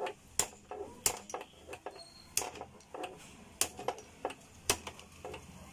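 Sharp metal knocks, roughly one a second with lighter taps between, as a steel rod (an old cooler shaft) is struck against a mixer grinder's threaded motor coupler to knock it round and unscrew it from the shaft.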